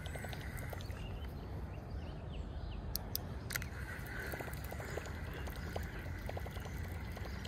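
Quiet outdoor ambience by a river: a low, steady background hiss with a few faint ticks and no clear single source.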